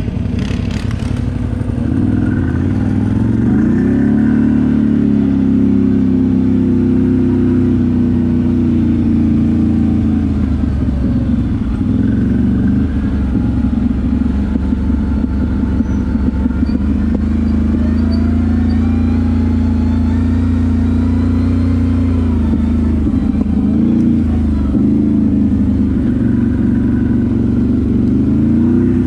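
ATV engine running under way, its revs rising and falling with the throttle: it climbs a few seconds in, holds, dips around the middle, and rises again later and near the end.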